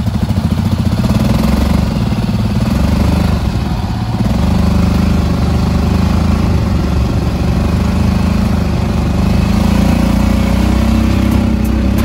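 Off-road dune buggy engine running steadily, loud and continuous, with small rises and falls in speed.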